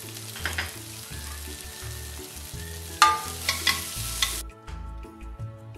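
Chopped onion and scallion whites sizzling in hot oil in a wok, with sharp clanks and scrapes of the spatula stirring them, loudest about three seconds in. The sizzling cuts off suddenly a little past four seconds, leaving soft background music.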